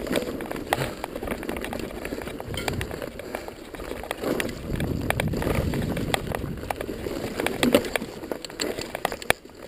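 Mountain bike rolling over rocky, loose singletrack: tyres crunching on rock and gravel while the bike rattles with many sharp clicks and knocks.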